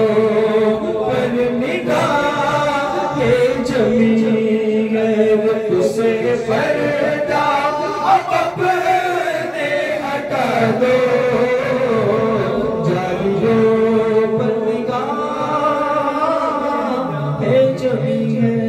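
A man singing an Urdu devotional song (manqabat) into a microphone, in long held, drawn-out notes.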